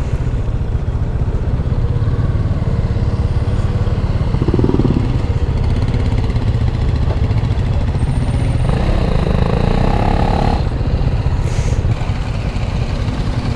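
Bajaj Dominar 400's single-cylinder engine running steadily, with a dense low pulsing rumble.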